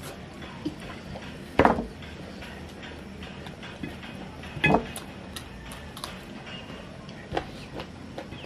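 Eating noises while working through a whole roasted chicken: scattered small clicks and taps on dishes, with two loud knocks, about a second and a half in and again about three seconds later.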